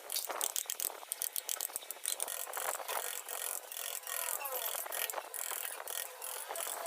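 A hand carving tool scraping and cutting wood in rapid short strokes, a dense run of crisp clicks and scrapes.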